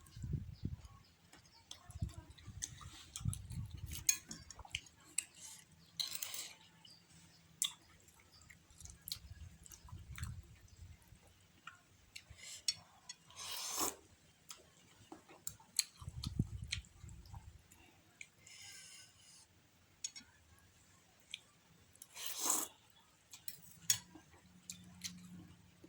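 Close-up eating sounds of a person chewing curry instant noodles and chewy bakso aci (tapioca meatballs): wet mouth clicks and chewing throughout, with three louder slurps spaced several seconds apart.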